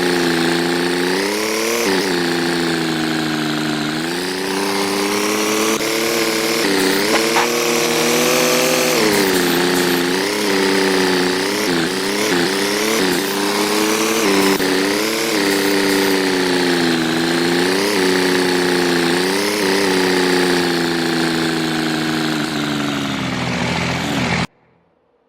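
An engine running, its speed rising and falling over and over, then cutting off suddenly near the end.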